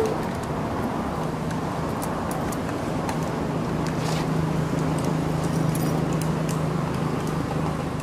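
Steady low rumble of a running engine with a constant low hum, and a short squeak at the very start.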